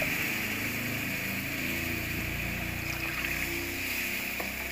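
Steady sizzling and bubbling as water boils up in the hot oil around oil-roasted semolina in a pan, stirred with a silicone spatula: the start of cooking sooji halwa after the water goes in.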